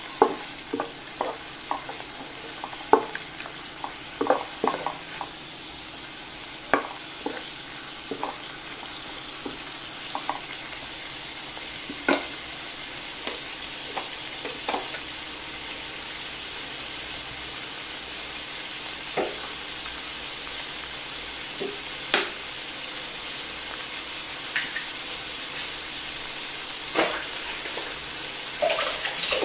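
Sliced Chinese sausage and garlic simmering in a shallow layer of water in a nonstick pan, a steady bubbling sizzle. A wooden spatula knocks and scrapes against the pan many times in the first several seconds, then only occasional single clicks and pops.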